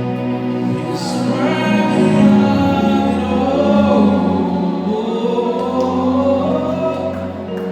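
Gospel choir singing, voices holding long notes over a sustained backing.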